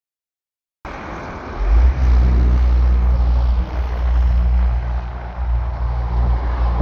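Silence for under a second, then outdoor wind rushing and buffeting across the microphone with a heavy low rumble, over a steady low hum.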